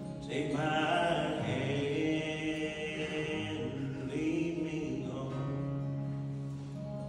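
A young man singing a slow song with long held notes, accompanying himself on acoustic guitar.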